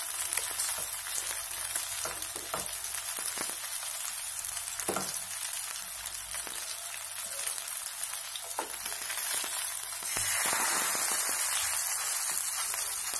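Masala-coated fish steaks shallow-frying in hot oil in a nonstick pan: a steady sizzle with a few sharp pops. The sizzle grows louder about ten seconds in, as a third steak is laid into the oil.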